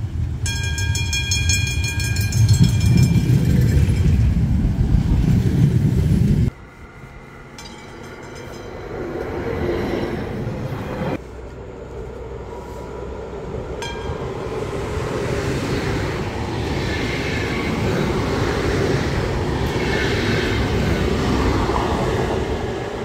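A VR commuter train passes close, its wheels and running gear making a loud rumble, while its high, ringing warning signal sounds for about six seconds. After an abrupt cut comes more train-passing noise with a fainter ringing signal, then a steady rail rumble.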